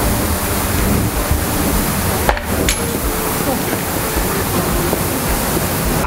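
Steady hiss of a water mister spraying a fine mist along a batting cage's frame, with a sharp knock about two seconds in.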